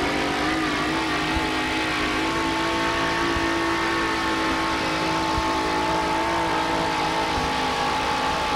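Supercharged engine of a two-wheel-drive super modified Chevrolet pulling truck running hard under full load as it drags the pulling sled. Its pitch climbs a little at first and then holds nearly steady.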